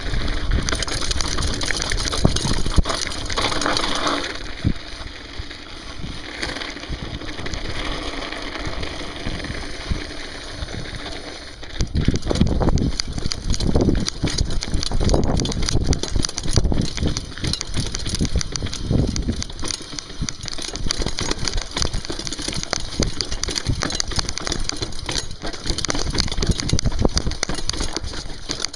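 Mountain bike rolling fast down a rough gravel trail: tyres crunching and the bike rattling and knocking over bumps, with rumbling noise throughout.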